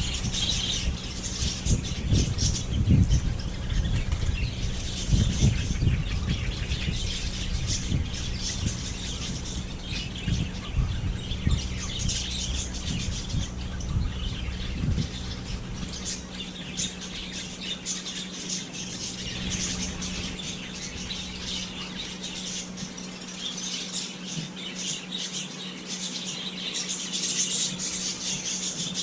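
A flock of small birds chirping and squawking continuously in quick, dense calls, over a steady low hum.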